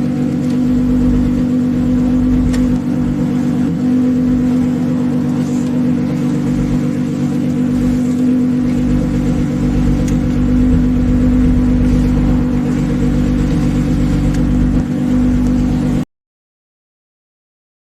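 Alpine GTA's PRV V6 engine running at a steady speed with an even hum, the car under way. The sound cuts off abruptly about two seconds before the end.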